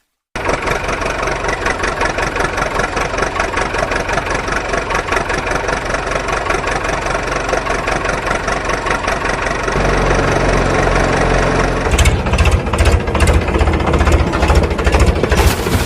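A vehicle engine running with a fast, steady rattle. About ten seconds in it settles to a deeper idle, and from about twelve seconds it turns to rougher, uneven chugging.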